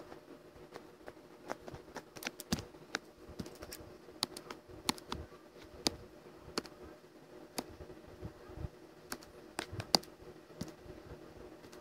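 Irregular clicks and taps of hands working at a computer while drawing, over a steady low hum.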